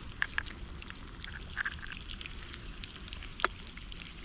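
Irregular crackling and popping from a campfire and steaks frying in a pan, with one sharp crack about three and a half seconds in.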